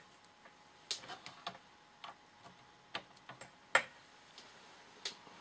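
Scattered, irregular light clicks and taps, about eight over five seconds with the sharpest near four seconds in, from hands working the switch and leads as a home-built front-panel computer is switched on.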